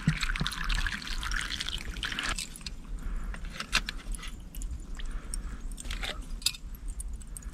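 Water poured from a bottle into a metal cook pot of vegetables, a trickling pour that stops a little over two seconds in. Then a few light metal clinks as the pot is handled and lifted off the spirit stove.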